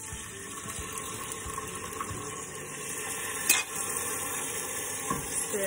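Vegetable stock poured from a glass jug into a hot stainless-steel pot of frying laksa paste, a steady splashing sizzle. A single sharp clink comes about three and a half seconds in.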